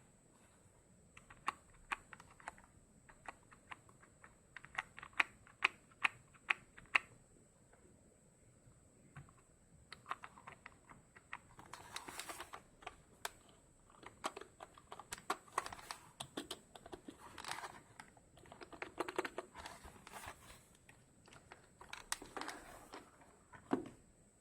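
Keys of a ZK-G082 RGB membrane keyboard being pressed: first single keystrokes about two a second, then, from about ten seconds in, bursts of fast typing.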